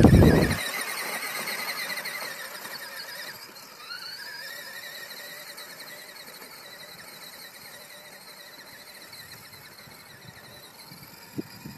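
High-pitched whine of a child's mini motorbike motor running, its pitch rising as the bike speeds up about four seconds in, then slowly fading as it rides away.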